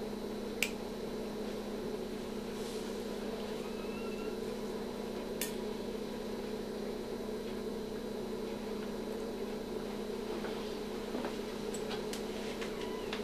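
Steady low hum of operating-room equipment, with a few sharp metallic clicks from steel surgical instruments as the incision is sutured. One click comes under a second in, another about five seconds in, and several lighter ticks near the end.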